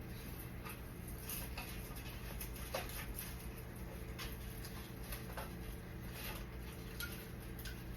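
Faint, scattered rustles and light clicks from Christmas tree branches and a star topper being handled and fitted, over a steady low hum.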